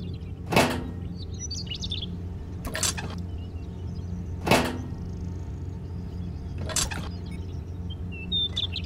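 Four quick whoosh sound effects, roughly two seconds apart, over a steady low hum, with a few faint high chirps between them.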